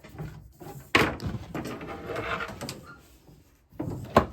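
Handling noise: a sharp knock about a second in, then rustling and scraping, and another sharp click near the end.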